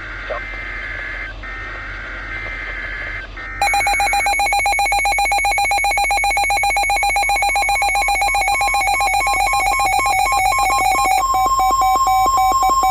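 Emergency Alert System broadcast on NOAA Weather Radio: three short bursts of warbling digital header tones, then a loud, rapidly pulsing alert tone that starts about three and a half seconds in. Near the end a steady single warning-alarm tone joins it, and this marks the start of a Special Marine Warning.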